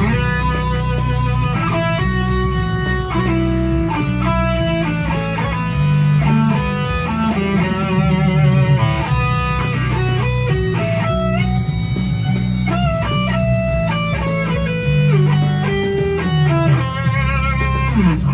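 Ibanez RG7421 seven-string electric guitar with DiMarzio Dreamcatcher and Rainmaker 7 pickups playing a lead solo of held notes, bends and wide vibrato over a low sustained accompaniment. The playing stops abruptly at the end.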